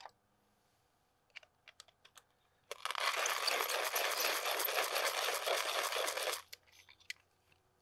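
Brass hand coffee grinder grinding coffee beans: a dense, gritty crunching for about four seconds, from a little before halfway in. A few light clicks come before it and a few more after it.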